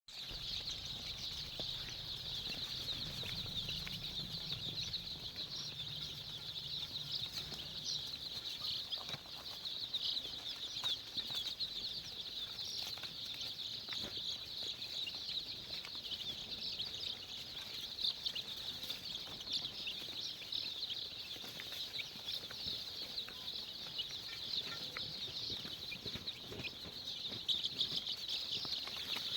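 A large flock of young poultry chicks peeping continuously in a dense, high-pitched chorus. A faint low hum sits underneath for about the first eight seconds.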